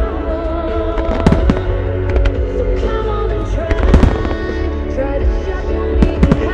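Aerial firework shells bursting in a string of sharp booms and crackles, the loudest about four seconds in, over a low rumble. Music from the display's loudspeakers plays throughout.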